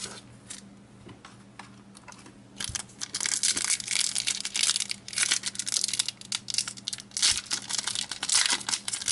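Foil wrapper of a Pokémon booster pack being torn open by hand and crinkled. A few faint rustles come first, then a dense run of crackling tears starts about two and a half seconds in.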